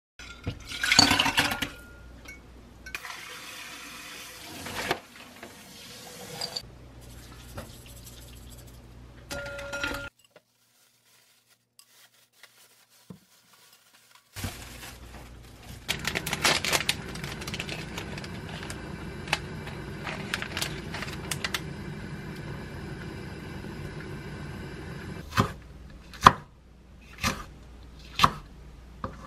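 Short, indistinct clinks and rustles, then a few seconds of silence. A black plastic bag is rustled and handled in a stainless-steel kitchen sink over a steady sound of running water. Near the end, a chef's knife chops a green chilli on a wooden cutting board, about one cut a second.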